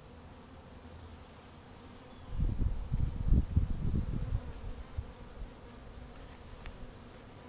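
Honey bees buzzing over an open hive as a steady hum. For about three seconds, starting some two seconds in, a louder, irregular low rumble rises over it.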